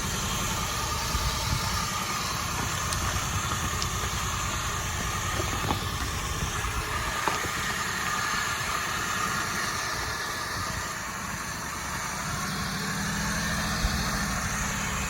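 Maruti 800 car's small three-cylinder petrol engine running steadily.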